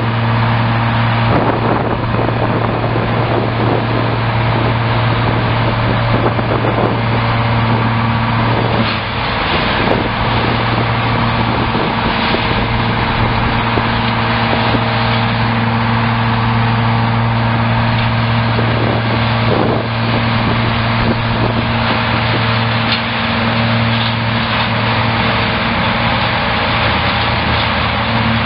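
Roto Grind 1090 tub grinder running under load, its tractor-driven hammer mill grinding hay bales: a loud, steady mechanical drone with a few short knocks as bales break up in the tub.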